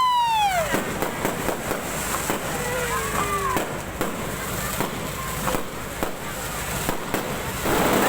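Fireworks going off: a rapid run of pops and crackles, with whistling fireworks whose pitch rises briefly and then falls, a loud one at the start and a fainter one about three seconds in.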